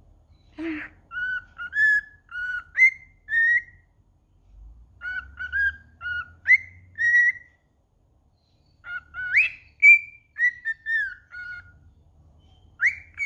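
Albino cockatiel whistling its song: three phrases of short, clear whistled notes, many sliding upward, with short pauses between the phrases.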